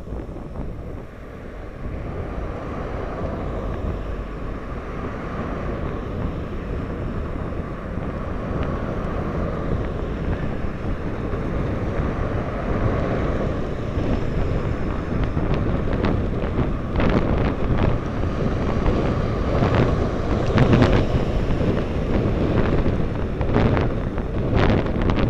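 Wind rushing and buffeting over the microphone of a camera riding on a moving road bicycle, growing louder over the first few seconds, with sharper gusts in the second half.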